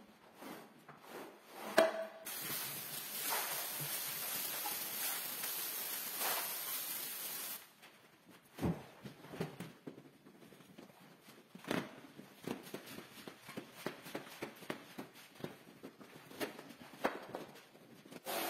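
Wet rug cleaning on a tiled floor: a squeegee working water across the rug. A steady hiss runs for about five seconds from about two seconds in, then scattered taps and knocks follow as the wet rug is handled.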